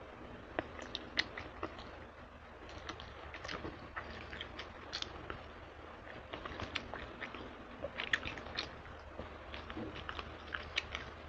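Close-up mouth sounds of someone eating chicken wings: irregular wet smacks and clicks of chewing and of sucking the meat off the bones.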